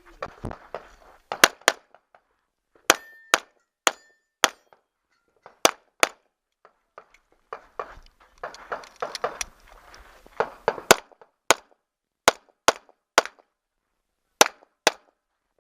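Pistol fired in a stage of practical shooting: about seventeen shots, singly and in quick pairs with short pauses between strings. Hits on steel targets give a clang, and some ring briefly.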